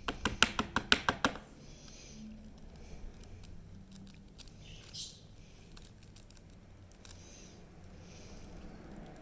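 A rapid run of about ten sharp clicks or taps in the first second and a half, from hands handling trading-card packaging, then faint breaths and a single small click near the middle.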